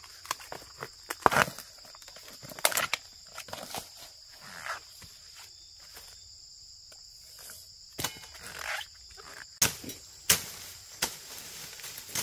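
Dry bamboo leaves and papery shoot sheaths crackling, with scattered sharp snaps and rustles as a wild bamboo shoot is handled in the leaf litter. A steady high insect drone runs underneath.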